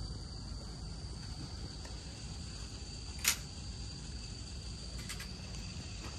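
A short, sharp hiss of aerosol wound spray about three seconds in, with two fainter short hisses around five seconds, as green antiseptic is sprayed onto a horse's sutured face wound. Under it, insects keep up a steady high-pitched drone.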